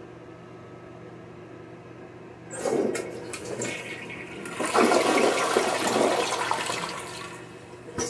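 Kohler Bancroft toilet flushing: a rush of water starts about two and a half seconds in, swells to its loudest around five to six seconds, and tails off near the end as the bowl drains.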